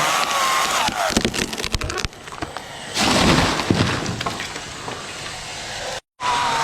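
Chainsaw running, its pitch dipping, then a run of sharp cracks and a heavy crash about three seconds in: the cut tree breaking and coming down. The sound cuts off abruptly near the end.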